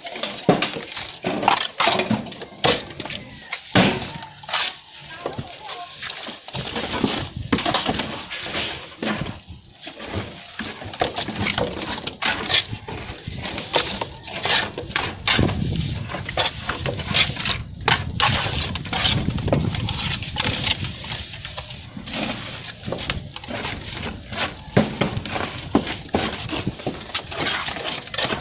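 Hand trowel slapping and scraping cement mortar onto the underside of a concrete beam: irregular scrapes and sharp taps.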